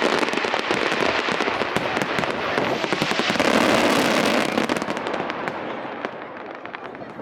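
Fireworks: a dense barrage of bursts and crackling that thins out and gets quieter after about four and a half seconds.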